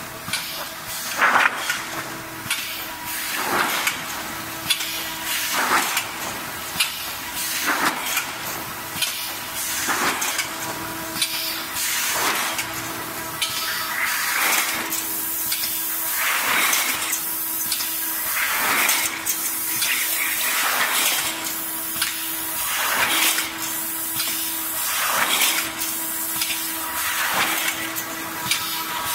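Automatic tinplate slitting machine running in a steady cycle. A rushing noise swells and fades about every two seconds, with clicks and clatter, over a faint steady hum.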